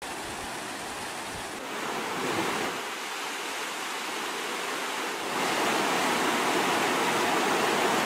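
Fast floodwater of a swollen river rushing and churning, a steady wash of noise that grows louder about five seconds in.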